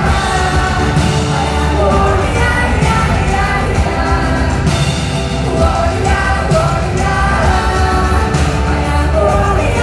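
Live pop band performance with a female singer's voice over keyboards, heavy drums and deep bass, played loud through a hall's PA and heard from among the audience.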